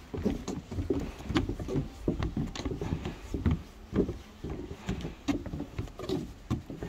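Footsteps on a wooden boardwalk: dull knocks on the planks, about two or three a second.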